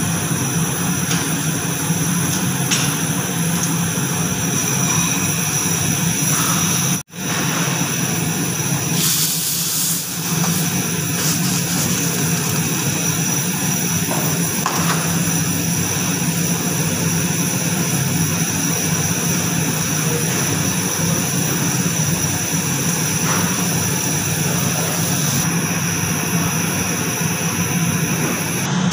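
Steady loud roar of commercial kitchen equipment with a low hum and faint high whines running under it. It cuts out for an instant about seven seconds in.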